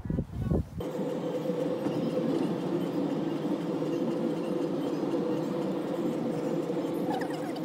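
Steady road and engine noise heard inside a moving car, a held hum with an even rush. In the first second, before it starts, a few gusts of wind buffet the microphone.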